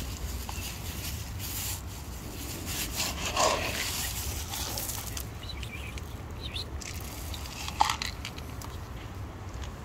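A cat gives one short meow that falls in pitch, about three and a half seconds in, over a steady low outdoor rumble. A brief sharp sound, the loudest moment, comes near the end.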